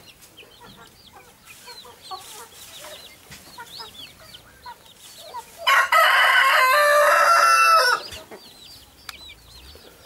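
A rooster crows once, a loud call of about two seconds starting about six seconds in, over a background of clucking chickens and short high chirps.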